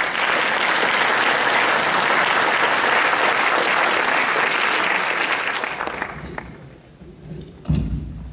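Audience applauding, dying away over the last few seconds. Near the end comes a single low thump as the microphone is handled.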